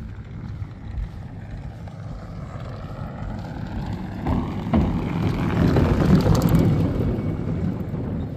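An engine running under way, with wind buffeting the microphone; it grows louder from about halfway through.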